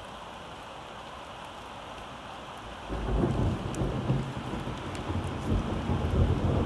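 Steady rain falling, with a low rumble of thunder coming in about three seconds in and continuing under the rain.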